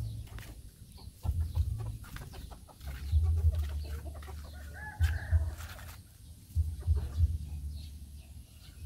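Chickens clucking in short calls, over repeated low rumbling thumps on the microphone.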